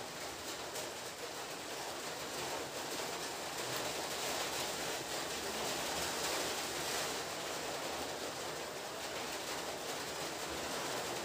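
A steady, even hiss of background noise, with no distinct sound standing out.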